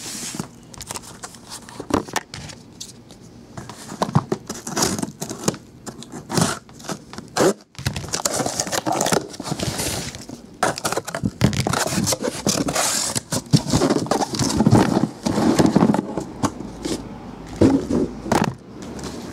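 Cardboard shipping case being opened and unpacked by hand: scraping and crackling of cardboard and tape, with sharp knocks as shrink-wrapped card boxes are set down and stacked on a table.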